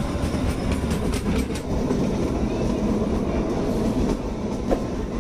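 Kalka–Shimla narrow-gauge toy train running, heard from inside a passenger coach: a steady rumble with wheels clicking over the rail joints now and then.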